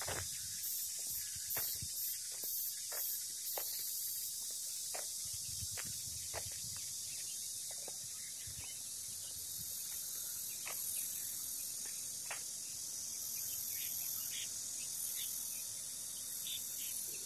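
Insects singing steadily outdoors: a high, continuous buzz with pulsing chirps on top that come and go, and scattered soft clicks and taps.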